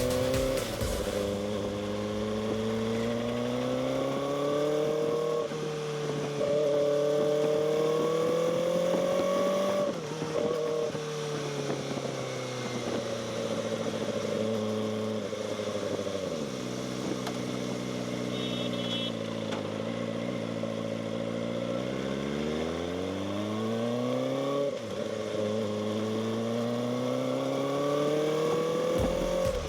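Kawasaki Ninja ZX-4RR's inline-four engine on its stock exhaust under way. The revs climb and drop back several times as it pulls through the gears, fall away for several seconds off the throttle, then climb again near the end.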